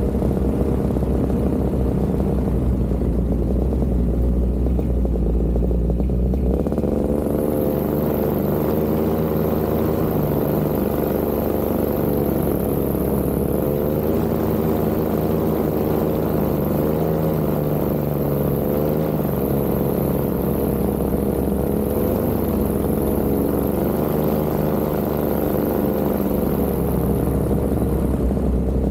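Paramotor engine and propeller running steadily in flight, heard from close by. About six seconds in the engine note shifts and a high hiss comes in, and the pitch wavers slightly a few times after that.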